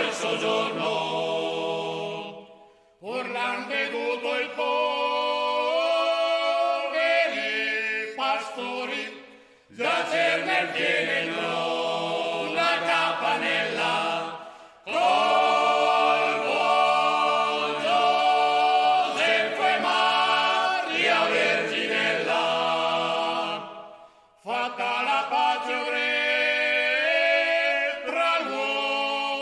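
Male a cappella choir singing in close harmony, in long sustained phrases broken by short pauses for breath about every five to ten seconds.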